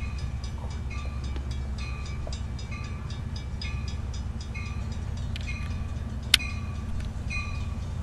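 Diesel passenger train approaching a station platform, its engine rumbling low and steady, while a bell rings steadily about once a second. A single sharp click about six seconds in.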